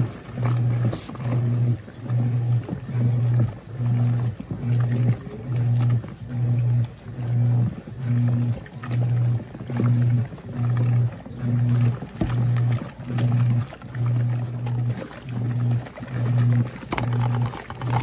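Wanke Sally semi-automatic washing machine agitating on its heavy cycle: the motor hum starts and stops about once a second as the agitator reverses direction, with the water and cloths sloshing in the tub.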